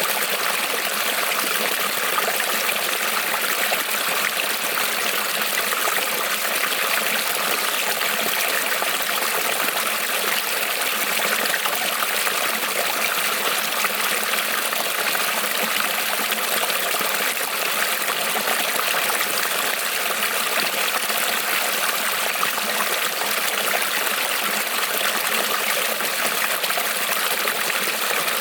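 Small creek rippling and trickling over stones, a steady even rush of running water.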